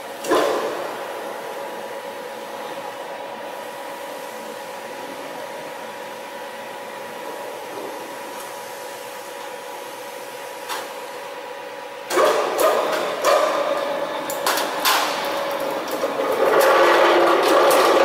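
Steady electric hum of a sheet-metal seam-locking machine. There is one sharp metal knock at the start, then a run of metal clanks and rattles from about twelve seconds in as the steel sheet is handled and clamped in the machine bed. The clatter grows louder and denser near the end.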